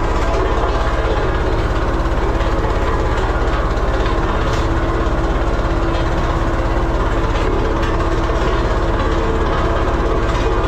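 Diesel engine of a vibratory road roller running steadily under way, a loud, even, heavy low throb with a steady hum on top.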